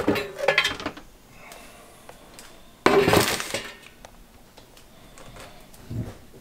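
Metal clattering and clinking of an air fryer's plastic-coated basket and loose wire rack as they are handled, with a sudden louder clatter about three seconds in as the basket is set down on a counter. A dull thump near the end.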